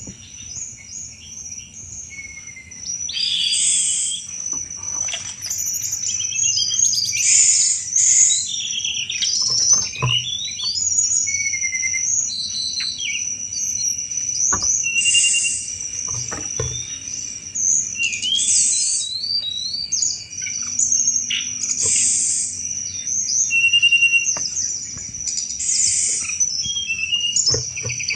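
Tledekan gunung singing in repeated bursts of quick, chattering chirps and short whistled glides, the 'cetrekan' song used to lure thrushes. A steady high buzz sits beneath it.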